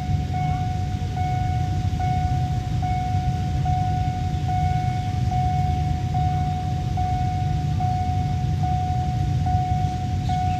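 Railway level-crossing warning alarm sounding a repeating electronic tone, with a short break a little more than once a second, over a steady low rumble of engines.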